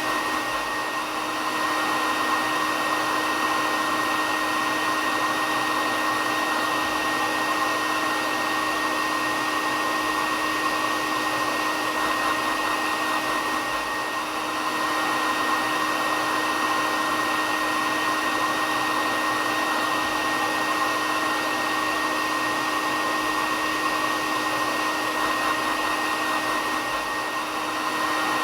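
Hair dryer running steadily: a constant whooshing noise with a steady whine over it, dipping slightly in level every thirteen seconds or so.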